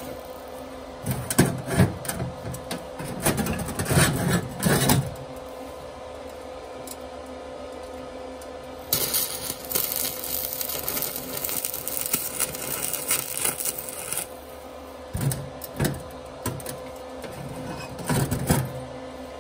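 Stick (arc) welding on steel: the 120 V inverter welder's arc crackles and hisses for about five seconds in the middle, with clusters of metal knocks and taps before and after. A faint steady hum runs underneath.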